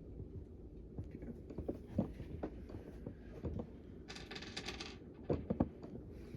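Small metal screws clinking as they are handled and picked up, with scattered light clicks and a second-long run of rapid ticking about four seconds in.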